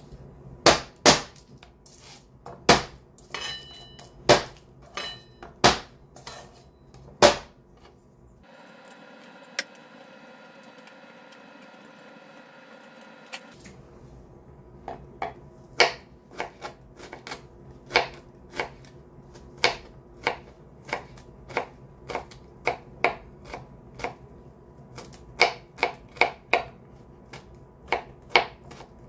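Chef's knife chopping garlic cloves on a plastic cutting board: sharp separate knocks of the blade on the board, then a few seconds with no chops, only faint hiss. After that the chopping resumes and quickens into rapid mincing strokes near the end.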